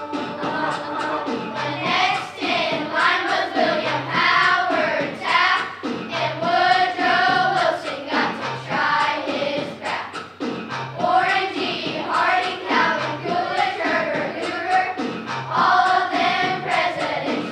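A group of children singing together in unison over a backing track with a steady beat.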